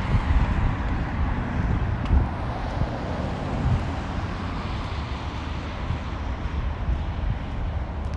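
Wind buffeting the phone's microphone in an uneven low rumble, over the steady noise of road traffic going by, which eases somewhat partway through.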